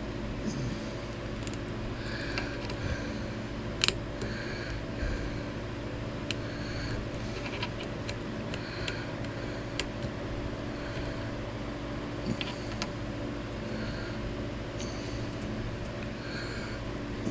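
Steady machine hum in the room, with scattered small clicks and light handling noises from tiny pins and thin wooden planks being fitted to a model boat hull; one sharper click about four seconds in.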